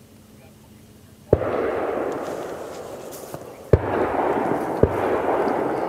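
Three gunshots, the second about two and a half seconds after the first and the third about a second later, each followed by a long rolling echo that slowly fades.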